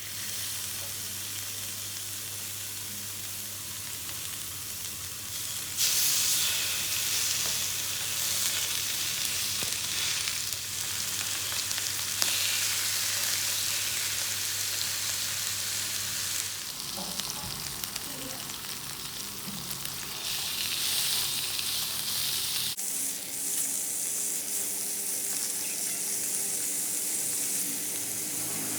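Pork belly and vegetables sizzling as they fry, a steady hiss that gets louder about six seconds in.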